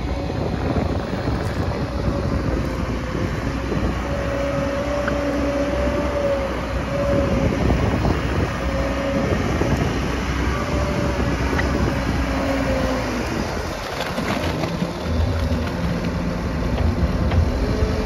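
Claas Scorpion 741 Varipower telehandler's diesel engine running under load as it drives with a full bucket of manure, with a whine that rises and falls.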